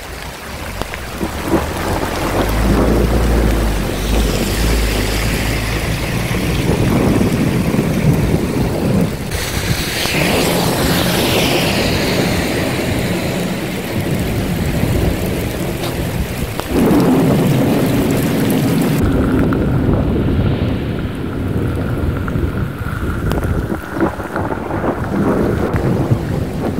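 Thunder rumbling during a heavy rain shower, a deep roll of thunder about two seconds in over the steady hiss of the downpour.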